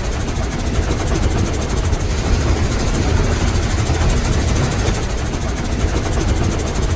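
Steam locomotive chugging steadily: rapid, even, airy exhaust chuffs over a low rumble.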